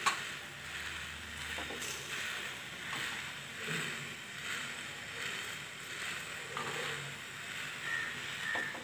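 Steady hiss of a kadai of water heating under a steaming plate of ribbonfish pieces, swelling and easing gently.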